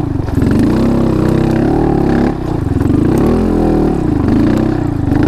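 Honda Monkey 125's single-cylinder four-stroke engine running under way, its revs rising and falling with the throttle, with a brief drop a little past two seconds and a swell around three to four seconds.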